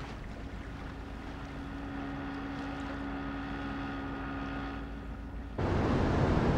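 A boat's engine running at a steady pitch. About five and a half seconds in it cuts off abruptly to louder surf breaking on rocks, with wind.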